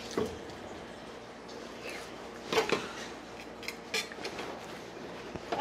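Knife knocking and scraping against a plastic cutting board while an olive flounder fillet is cut: a few short sharp strokes, the loudest a quick pair about two and a half seconds in, over a faint steady hum.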